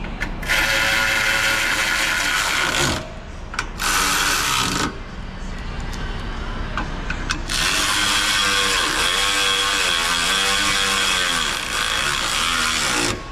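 A cordless power driver running bolts in, in three bursts: two short ones, then a longer run near the end whose pitch dips and recovers as the motor takes load.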